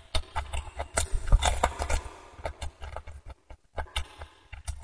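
Close-miked wet eating sounds: chewing and sucking meat and marrow off a braised beef bone, with irregular smacking clicks and dull bumps, briefly quieter a little past the middle.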